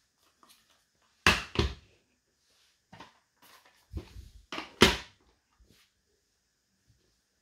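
A few sharp knocks and clunks of hard objects being handled and set down: two close together about a second in, then a couple more around four to five seconds in, with fainter taps between.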